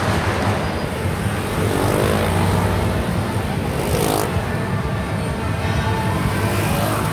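Motor scooters passing, their engines gliding in pitch, over a steady low rumble. A short burst of noise comes about four seconds in.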